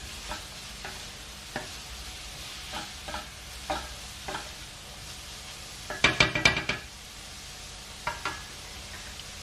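Chopped onion, garlic, grated carrot and sweet pepper sizzling in oil in a frying pan, with a utensil stirring and scraping the pan in scattered clicks. About six seconds in comes a short run of louder clinks and scrapes against the pan.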